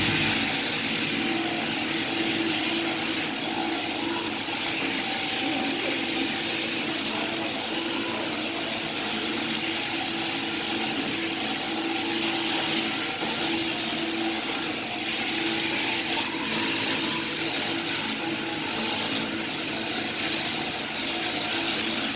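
Overhead-drive sheep-shearing handpiece running steadily while shearing a sheep's fleece: a continuous, even mechanical hum.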